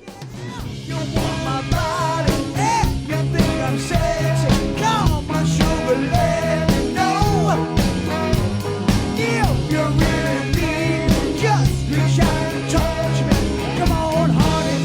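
Rock band playing loudly: drums keeping a steady beat under sustained bass notes, with a lead line sliding and bending in pitch above. The music comes in after a short break and builds over the first second or so.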